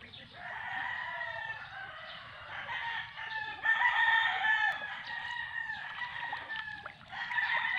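Roosters crowing again and again, long pitched calls following one another with little pause between them.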